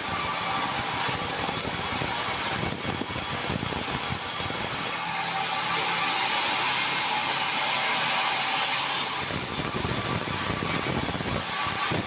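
Sawmill band saw running steadily, its blade ripping a red meranti batu board lengthwise.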